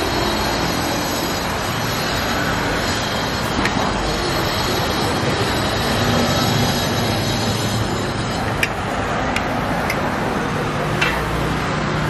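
Steady rumble of road traffic passing a street stall, with a few light clicks of a fork and plates.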